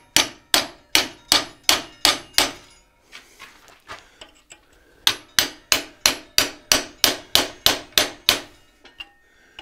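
Hand hammer striking a chisel set against the edge of a forged high-carbon steel heart held in a vise: a run of about eight sharp, briefly ringing metal blows at roughly three a second, a pause of about two and a half seconds, then about ten more blows.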